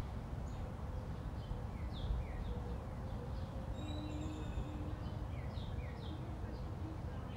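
Birds chirping over and over in short, quick falling notes, over a low steady rumble.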